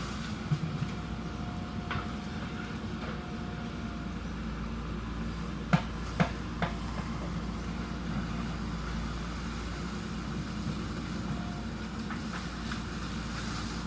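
JCB backhoe loader's diesel engine running steadily while the machine works, with three sharp knocks in quick succession about six seconds in.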